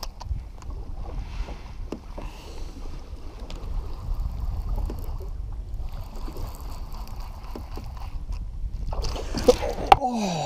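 Wind buffeting the microphone and water lapping against a kayak hull, with scattered small clicks. About nine seconds in comes a louder burst of rustling with a sharp knock, then a short falling voice-like sound.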